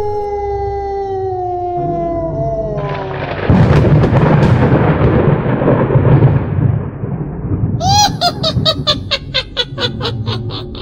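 Spooky sound effects: a long howl that falls slowly in pitch, then a loud rumble of thunder starting about three and a half seconds in, then a quick run of short, high repeated cries near the end.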